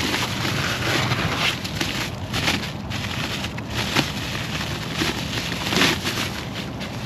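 Handling noise: a run of short rustles, scrapes and light knocks as parts and their packaging are handled, over a steady low hum.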